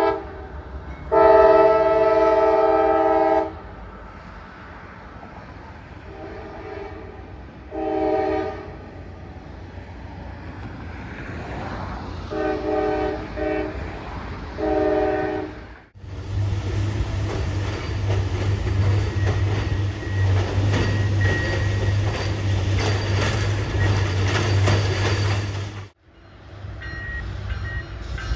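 Diesel locomotive horn sounding a chord of several tones: one long blast, then several shorter blasts over the next dozen seconds. Then a train passing close for about ten seconds, a steady low engine drone under dense wheel and rail noise, which stops abruptly. A train approaches near the end.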